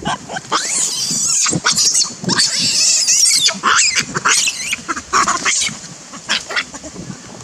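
Baby long-tailed macaque screaming in distress while an adult macaque grabs and pins it: a string of high, wavering shrieks, thinning out near the end.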